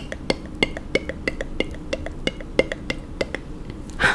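Mascara wand brushing and tapping against a plastic doll's eyelashes and eye, making quick irregular clicks, about three or four a second, with a short brushing swish near the end.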